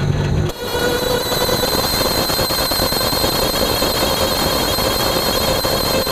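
Running gear of a 1989 Toyota pickup driving in four-wheel drive, heard at the right front wheel: road and wind rush with a steady whine over it, the front axle noise that shows in 4WD. About half a second in the sound dips briefly, then the rush and whine carry on evenly.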